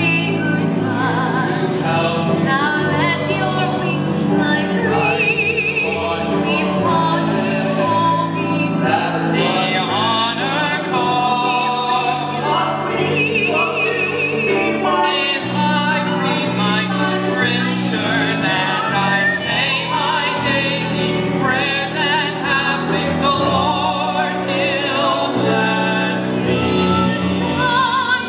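Musical-theatre number sung live by a woman and men, alternating solo and ensemble voices with vibrato over a small band with sustained bass notes.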